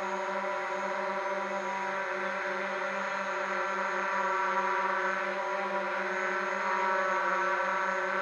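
DJI Mavic Pro quadcopter hovering, its four propellers giving a steady buzzing whine whose pitch wavers slightly.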